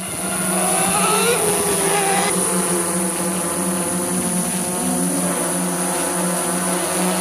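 DJI S900 hexacopter's motors and propellers humming steadily in flight. A fainter sound rises and falls in pitch during the first two seconds.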